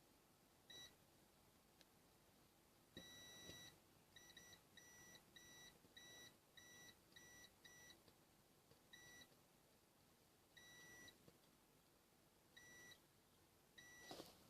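Multimeter continuity beeper giving faint, broken beeps of uneven length: one long beep, a quick run of short ones, then a few more spaced apart, as the probes touch a solderless breadboard's contacts. The stuttering beep shows the contacts are a bit loose.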